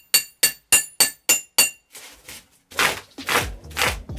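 Hammer striking a metal chisel into a polystyrene foam block: six sharp, ringing strikes, about three a second. After a short pause, loud rough scraping strokes, about two a second, as the chisel is worked by hand to gouge out the foam.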